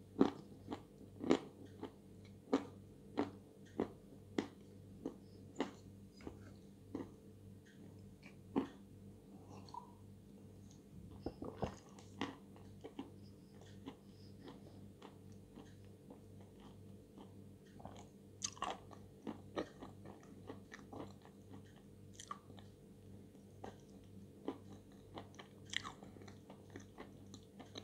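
Dry edible chalk (White Velour) crunched between the teeth and chewed: a steady run of sharp crunches about twice a second at first, then sparser bites and chewing.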